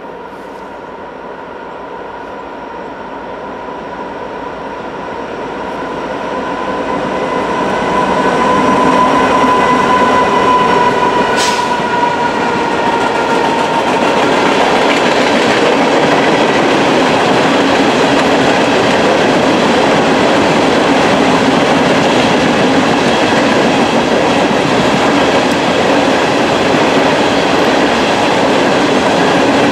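Empty coal train approaching and passing: the locomotives grow louder with a steady whine that dips slightly in pitch as they go by. Then comes the continuous rolling noise and wheel clatter of empty coal hopper cars over the rails.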